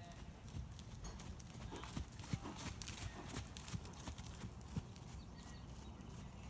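Hoofbeats of an Oldenburg mare trotting on a sand arena, a run of soft, irregular thuds that grow loudest as she passes close by in the middle.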